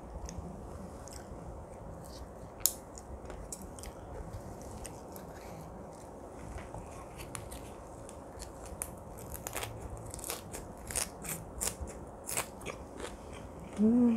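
Close-miked eating sounds of someone chewing a mouthful of grilled pork galbi wrapped in leafy greens: wet chewing with sharp, crisp crunches that come thicker in the second half. A short hummed "mm" at the very end.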